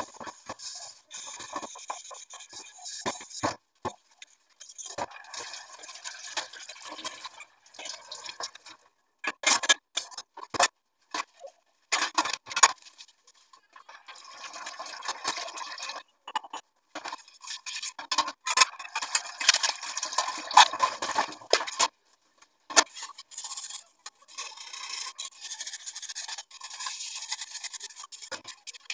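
Dishes being scrubbed by hand in a stainless steel sink: spells of scouring strokes on steel pots, with short pauses between them, broken by sharp clanks and clinks of metal dishes being handled, the loudest about ten, twelve and twenty seconds in.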